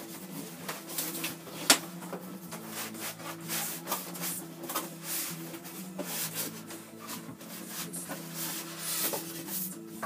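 Cardboard box being handled and opened: scraping and rubbing of card with many small clicks, and one sharp knock just under two seconds in, the loudest sound. A steady low hum runs underneath.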